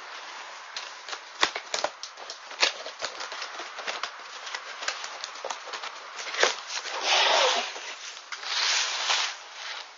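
A large cardboard gun box being handled and opened by hand: scattered taps, knocks and rubs on the cardboard, then two longer scraping rustles a little past halfway as the lid comes off the box.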